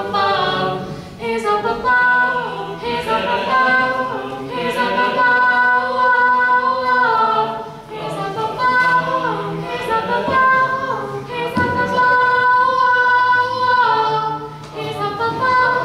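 Four young voices, two male and two female, singing a four-part a cappella arrangement together, with long held notes and no instruments.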